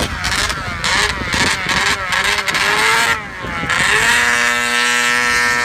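Arctic Cat ZR440 snowmobile's two-stroke engine running under way, its revs rising and falling several times, then held steady and high for the last second and a half. The engine is running lean, which the owners put down to an untuned carb and a fuel pump that needs work.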